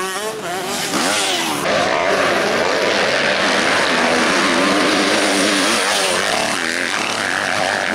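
Motocross bike engines revving hard, their pitch rising and falling with throttle and gear changes. From about two seconds in the sound becomes a denser, steadier engine note.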